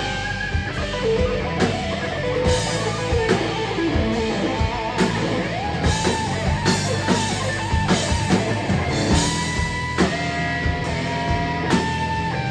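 A rock band playing live: a drum kit keeps a steady beat under guitars, with long held lead notes that slide up and down in pitch.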